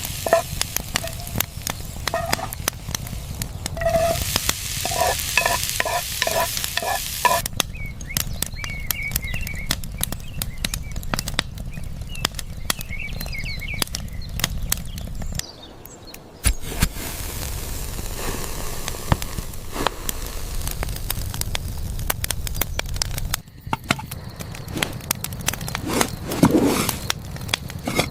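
Kitchen knife chopping and slicing on a cutting board: many sharp, quick strokes over a steady hiss like food sizzling. The sound changes abruptly a few times, as between separate shots.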